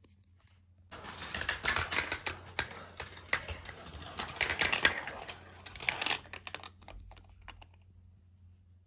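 GraviTrax steel marbles rolling and clattering over plastic track and metal rails, a dense run of sharp clicks starting about a second in. Near the end the clicks thin out to a few taps as the marbles drop into the finish landing and settle.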